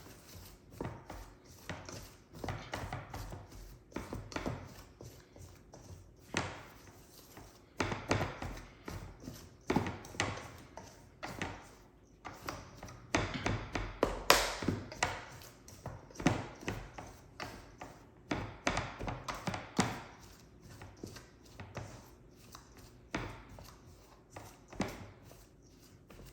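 Pie dough being worked by hand in a mixing bowl to get the lumps out: irregular knocks and taps against the bowl, a couple a second, with a few louder knocks along the way.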